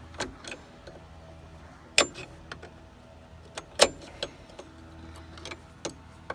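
Hand tools clinking and knocking on the steel disc hub of a Krone SafeCut mower while the broken shear pin piece is worked out. There are scattered light taps and two sharp, ringing metal strikes, about 2 seconds in and just under 4 seconds in, over a low steady hum.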